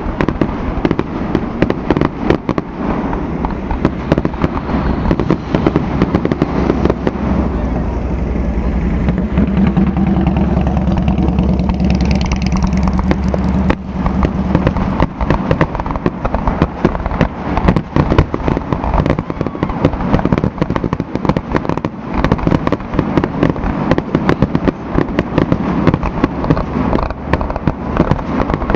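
Fireworks display finale: aerial shells bursting in rapid, near-continuous bangs and crackles. A steady low hum runs underneath for several seconds near the middle.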